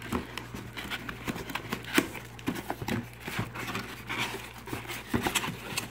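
Hands handling cardboard boxes and packaging: irregular taps, knocks and rustles as a small cardboard box is pulled out of a larger carton, with one louder knock about two seconds in. A steady low hum runs underneath.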